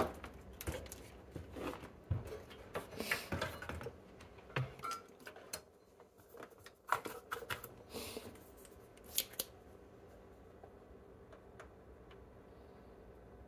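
Small hand tools working on a circuit board: scattered sharp clicks and light metallic clatter of cutters and pliers as components are clipped and worked free, thinning out to a few isolated clicks in the second half.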